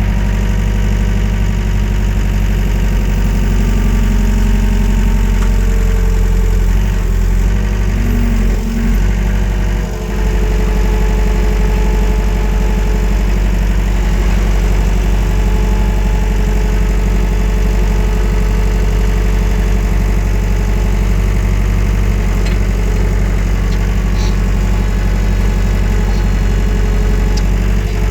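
Wacker Neuson 901S skid steer's engine, throttled up at the start and running steadily under load as it lifts a full 1,000-litre bulk container, with a brief dip about ten seconds in.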